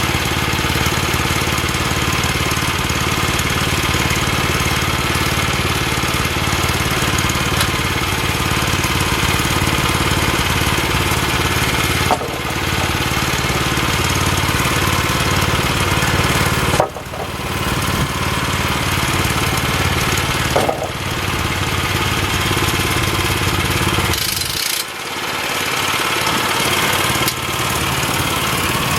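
Small gasoline engine of a Woodland Mills portable band sawmill running steadily, with a few brief dips in level along the way.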